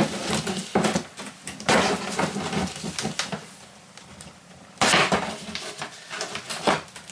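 Metal tool scraping and clicking against a scooter's sheet-metal kick panel as an old, heat-softened rubber knob is worked out of its hole, with several sharp knocks, the loudest about five seconds in.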